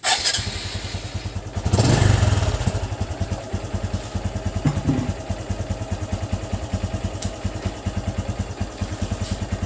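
Honda RS125 fi's single-cylinder four-stroke engine starting on the electric starter and catching at once. It rises briefly about two seconds in, then settles to a steady, evenly pulsing idle, run up on freshly changed oil.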